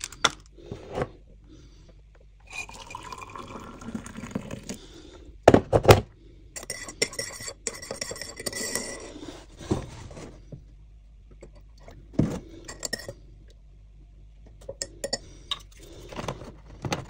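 Making a mug of tea: liquid poured into a ceramic mug, then a metal teaspoon stirring and clinking against the mug, with a couple of loud knocks about six seconds in and scattered sharp clinks towards the end.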